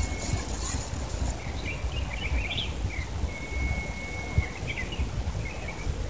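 Birds chirping in short scattered calls, one note held for about a second near the middle, over a steady low rumble.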